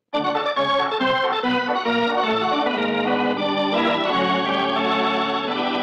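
Organ music: a radio-drama musical cue that opens the act, with sustained chords that start abruptly and begin to fade near the end.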